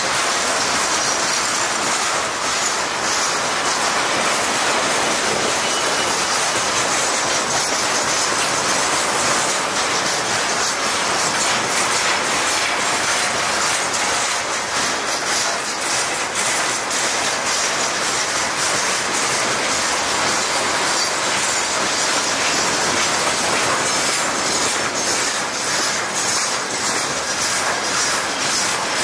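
A long freight train of railway tank wagons rolling past close by. The wheels make a steady rumble and rattle, with a run of quick clicks as the bogies pass.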